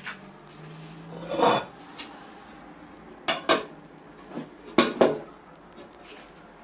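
A ceramic plate set upside-down over a bowl as a cover. There is a short scrape, then two pairs of sharp clinks as the plate knocks against the bowl's rim.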